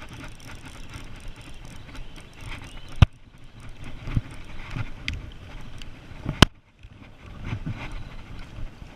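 Close handling noise as hands work a spinning reel and its line right at the microphone: rustling and small knocks, with two sharp clicks, one about three seconds in and a louder one about six and a half seconds in.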